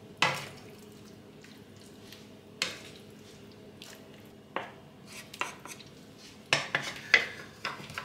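Wooden spatulas knocking and scraping against a frying pan as a creamy spinach mixture is scooped out and spread in a baking dish. There are a few sharp knocks, spaced out at first and coming close together in the last couple of seconds.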